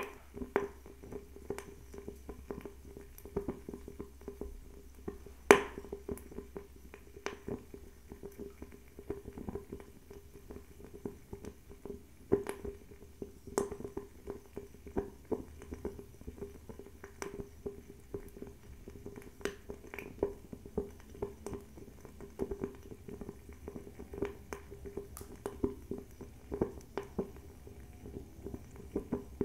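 Fire crackling: irregular sharp pops and snaps, several a second, the loudest snap about five and a half seconds in, over a faint steady hum.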